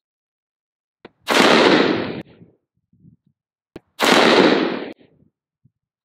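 Two single shots about two and a half seconds apart from a 10.3-inch-barrel AR-15 firing 5.56 M193 ball ammunition through a four-prong flash hider, unsuppressed. Each blast is sudden and dies away over about a second.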